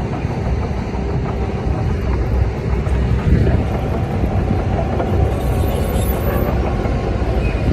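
Heavy earthmoving machinery running: a loud, steady diesel engine rumble, from a bulldozer working sand and a dump truck on site.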